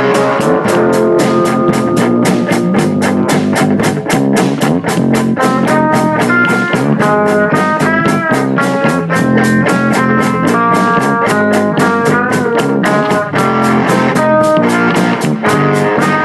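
Background rock music led by guitar, with pitched notes that bend, over a steady quick drum beat.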